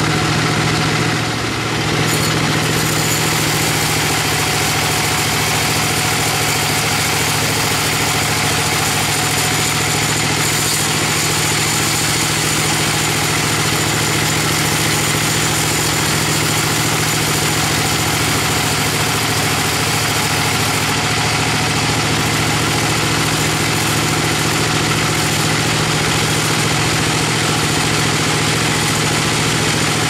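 Band sawmill running steadily as its blade rips lengthwise through a bayur (Pterospermum javanicum) log: a constant machine hum with an even sawing hiss. The level dips briefly about a second and a half in.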